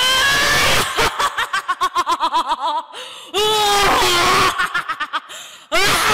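A woman's loud, theatrical ogre's laugh in character: a long rising cry that breaks into a run of rapid "ha-ha-ha" pulses, followed by two more long cries.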